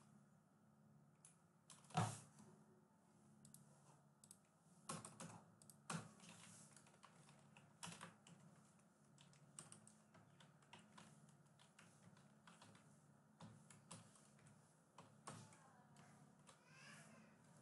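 Faint, irregular typing on a computer keyboard, with one louder key click about two seconds in.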